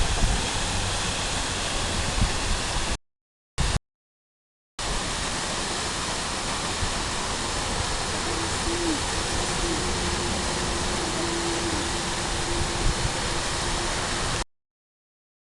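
Waterfall rushing with a steady, even roar of falling water. The sound cuts out abruptly for over a second about three seconds in, and again near the end.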